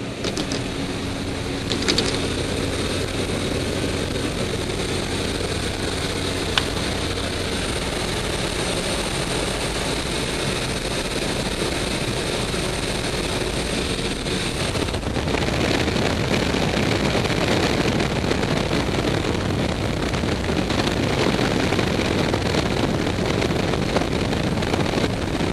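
Freefall wind rushing over the skydiver's camera microphone, a steady dense roar that grows a little louder about halfway through.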